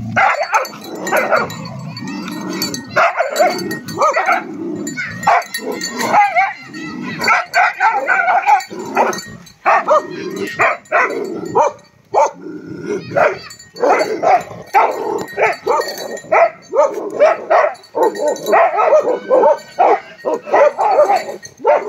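A group of dogs, Tibetan mastiffs among them, barking loudly and almost without pause as they tussle at close quarters, the barks overlapping one another.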